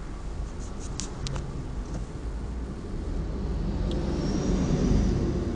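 Low rumbling background noise that swells about four seconds in, with two faint clicks about a second in.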